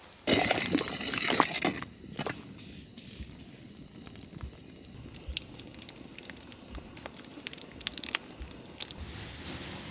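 A ladle stirring thick payasam in a large metal pot gives a loud, squelchy, scraping stretch of about a second and a half. After that it turns quieter, with scattered small clicks.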